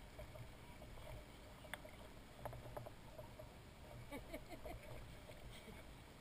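Kayak paddling on calm water: faint paddle strokes with small splashes, drips and light knocks, over a low steady rumble.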